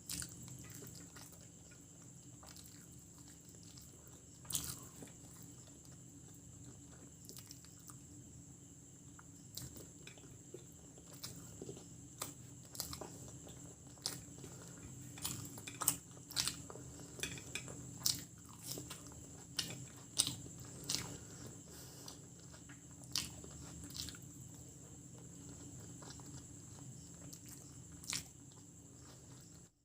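Close-miked chewing and biting of chicken biryani and egg masala, with irregular wet mouth clicks and smacks, over a steady background hum.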